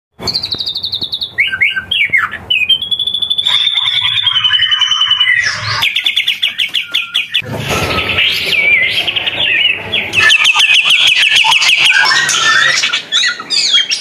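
Caged songbirds singing in a string of short edited clips, each a different bird: long clear whistles, then fast runs of repeated notes and trills.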